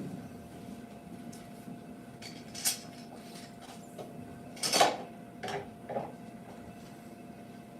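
Woodworking hand tools being handled: a few sharp metallic clinks and knocks, the loudest about five seconds in, over a faint steady hum.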